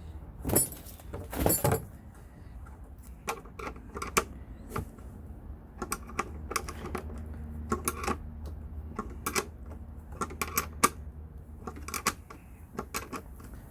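Hand tool working nuts onto carriage bolts while assembling a snow pusher, giving a run of irregular sharp clicks and taps. Two louder clatters come in the first two seconds.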